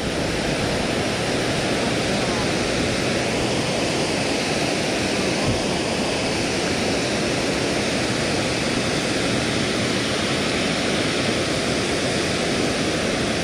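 Water falling over a dam spillway into the pool below: a steady, unbroken rush of falling water.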